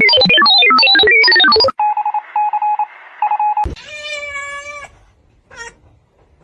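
A loud, fast run of electronic tones jumping in pitch, then three short level beeps and a sharp click. A cat then meows once, a steady call about a second long.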